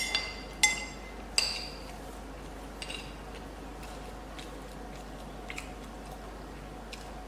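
Metal cutlery clinking against a dish while eating: four sharp, ringing clinks in the first second and a half, then a few lighter taps.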